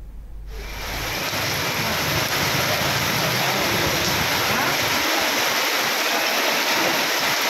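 Heavy rain pouring onto a waterlogged street, a steady hiss that starts about half a second in. A low rumble of a car driving through the water lies under it for the first few seconds.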